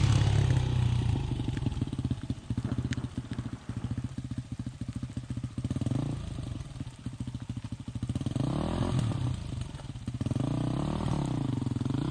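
Dual-sport motorcycle engine, loudest at the start as the bike goes by, then running slowly with a steady low putter. Near the end the revs rise and fall twice as the rider accelerates.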